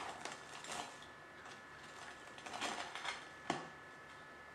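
Knife cutting through the crisp bread-crumb coating of a fried paneer finger: faint, scattered crunching and crackling, with one sharp click about three and a half seconds in.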